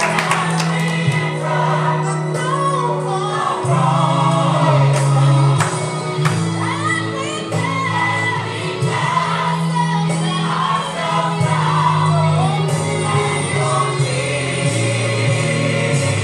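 Gospel music with a choir singing over long held bass notes.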